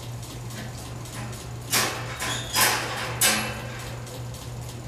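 Short scuffs and rattles of a puppy moving in a wire dog crate, three louder ones between about two and three and a half seconds in, over a steady low hum.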